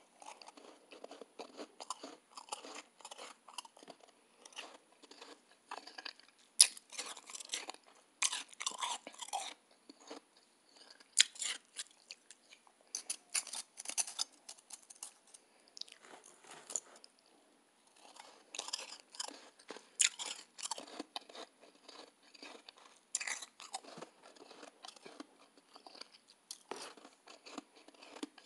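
Close-up chewing of soft, snow-like shaved ice: runs of crisp crunches with brief pauses, one longer lull a little past halfway.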